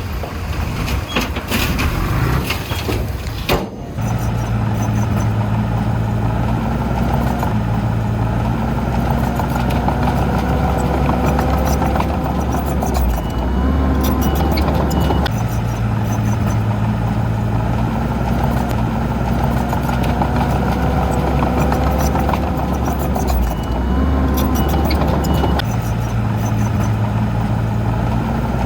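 Heavy diesel earthmoving machine engine running under load, its pitch shifting in a cycle that repeats about every ten seconds. Short high beeps sound twice, about ten seconds apart.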